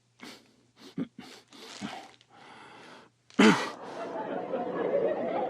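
A sudden loud thump about three and a half seconds in, followed by a burst of audience laughter, after a few short breathy voice sounds.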